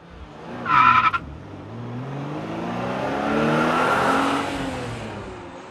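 A short high tyre squeal about a second in, then a car engine revving, its pitch climbing to a peak near the four-second mark and fading away.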